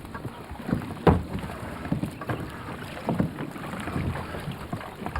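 Water sloshing and splashing around a small wooden boat moving through the water, with a sharp knock or splash about a second in.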